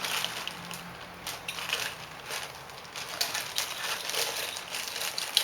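Irregular rustling and light clicks of plastic toy cars being handled.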